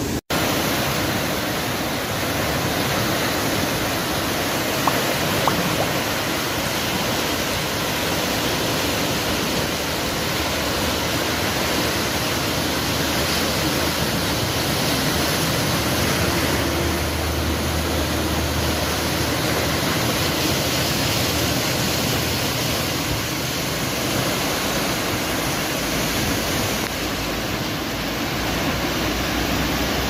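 A steady, even rushing hiss with no bird calls in it, broken by a split-second gap just after the start.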